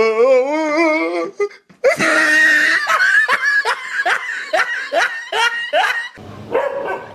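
Stray dogs barking at a stuffed toy tiger: a brief wavering vocal cry in the first second, then one dog barks rapidly, about three barks a second for some four seconds, in alarm at what it takes for a tiger.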